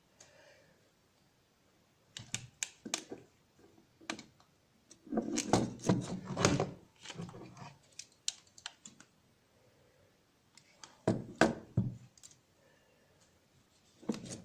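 Clicks and knocks of an alarm clock radio being handled, in four bursts of quick strokes with quiet gaps between them.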